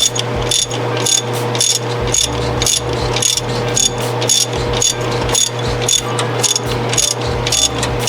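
Hand ratchet on an extension clicking in steady back-and-forth strokes, about three clicks a second, as cylinder head bolts are run down snug. A steady low hum runs underneath.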